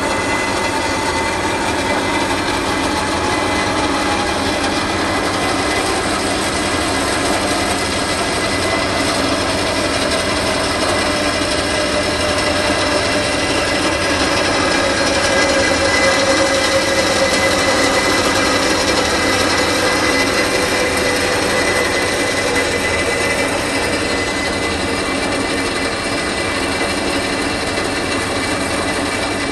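DoAll C-4 horizontal band saw running, its blade cutting through square steel tubing: a steady metallic rasp with ringing tones, one of which slowly drops in pitch over the first half, a little louder around the middle.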